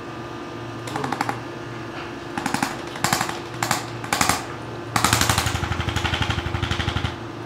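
Handheld electric percussion tool tapping rapidly in several short bursts, then running continuously for about two seconds near the end. A steady low hum lies underneath.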